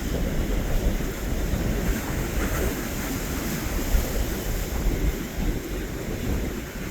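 Strong gusty wind buffeting the microphone in a low, fluttering rumble, over the steady wash of ocean surf.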